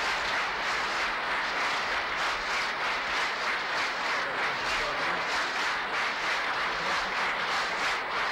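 A large crowd applauding steadily, a dense, continuous clapping.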